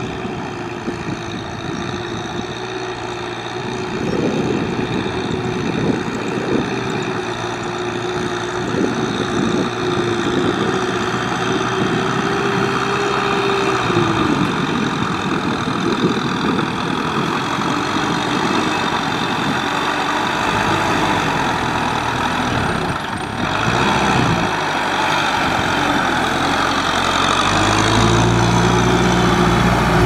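A farm tractor's diesel engine running under load while working through flooded paddy mud. Its steady note holds, drops away about halfway through, and comes back deeper and a little louder near the end.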